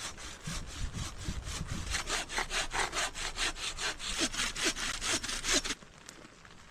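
Hand saw cutting through wood in quick, even back-and-forth strokes, which stop about six seconds in.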